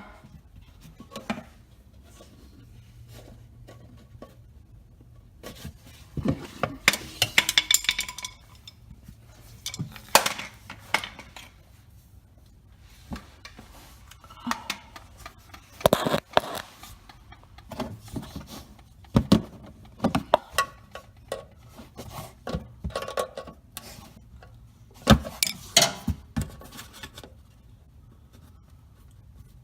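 Flathead screwdriver prying at stubborn plastic push-in retaining clips on a Nissan 350Z front bumper: irregular clicks, scrapes and small knocks of metal on plastic, in several bursts.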